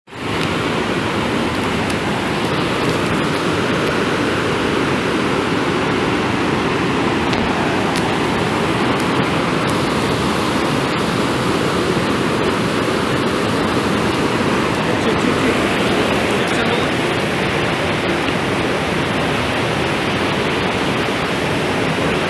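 Fast mountain river rapids rushing over rocks, a loud, steady whitewater noise.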